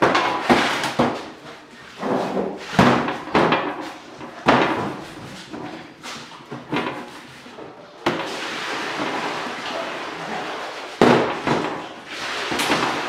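Irregular hard knocks and thumps on a stainless steel bakery worktable as bread dough is torn off, slapped down and handled beside metal trays. A steady hiss fills a stretch of about three seconds past the middle.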